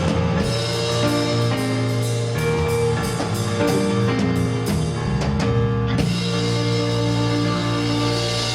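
A band playing slide guitar with a drum kit; the drums stop about six seconds in and the held notes ring on.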